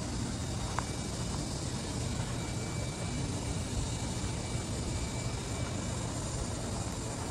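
Steady outdoor background noise at night: an even hiss with a low hum under it and a faint thin whine through the middle, with no distinct events.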